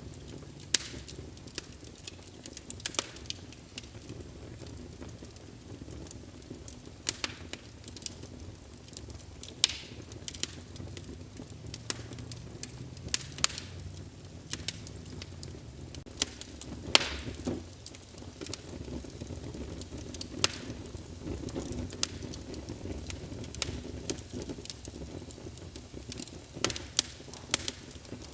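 Wood fire burning in a fireplace: a low steady rumble of flames with irregular crackles and sharp pops from the burning logs, a few of them loud.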